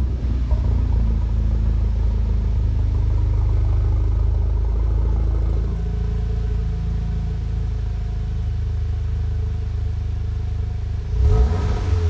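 2017 Audi S3's turbocharged 2.0-litre four-cylinder idling through an Armytrix valvetronic exhaust, just after start-up. The idle settles a little lower about halfway through, and near the end the engine is blipped in a quick rev.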